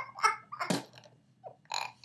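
Laughter trailing off: a short pitched laugh sound, then breathy gasps and small bursts of breath.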